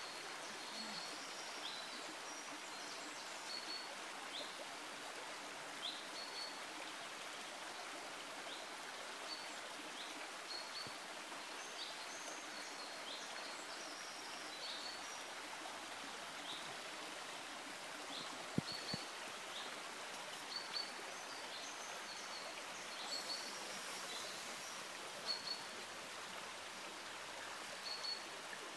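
Shallow rocky stream running steadily, with a small bird giving short high chirps again and again. A single sharp click is heard about two-thirds of the way through.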